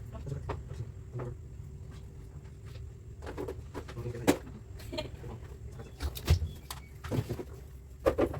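Kitchen clatter: scattered knocks and clicks of cookware and utensils being handled over a steady low hum, the knocks coming more often and louder from about halfway through.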